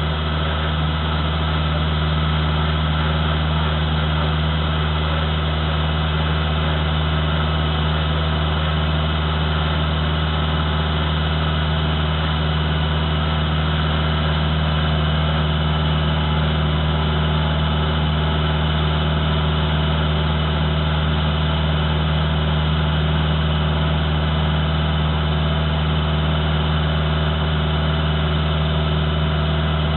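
Iseki TG5470 compact tractor's diesel engine idling steadily, with an even low hum that does not change.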